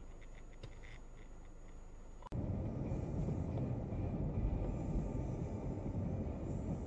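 Steady low rumble of a car driving, heard from inside the car on a dashcam microphone. It starts abruptly about two seconds in, after fainter low road noise.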